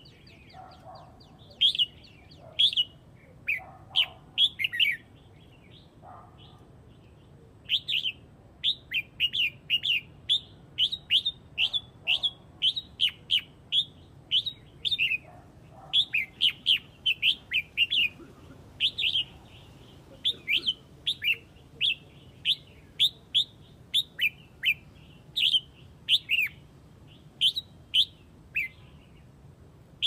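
Red-whiskered bulbul calling the flock: a long run of short, bright, slurred notes, two or three a second in clusters with brief pauses. It is opened by a fast, thin trill.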